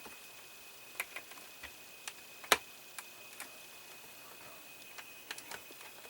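Small screwdriver driving a tiny screw into a plastic model part: scattered light clicks and taps, with one sharper click about two and a half seconds in.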